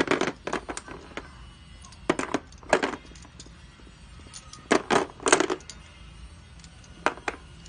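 Green chalcedony bangles with silver fittings clacking and clinking as they are picked up, handled and set down in a plastic tray, in four short clusters of hard clicks.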